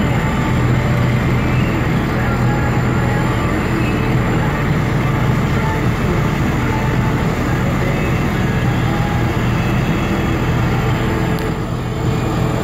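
Diesel engine of farm machinery running steadily, a continuous low hum with a slight dip near the end.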